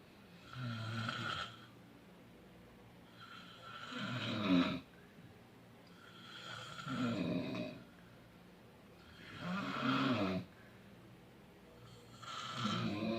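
A sleeping person snoring: five long snores, one about every three seconds, with quiet breathing gaps between them.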